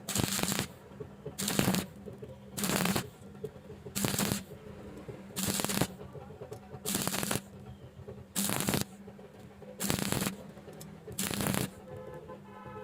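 Stick-welding arc from a 6013 rod, 2.6 mm, struck and broken again and again: about nine crackling, sizzling bursts of roughly half a second each, one every second and a half or so. A steady low hum runs between them.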